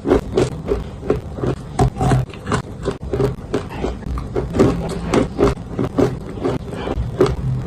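Close-up crunching of dry edible clay being bitten and chewed: a steady run of sharp, irregular crackles several times a second, with low thuds from the jaw.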